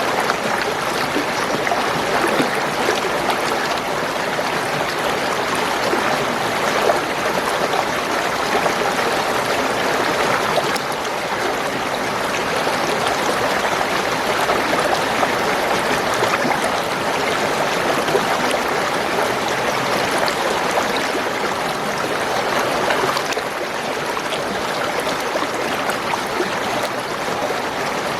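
Spring water flowing and gurgling steadily over stones.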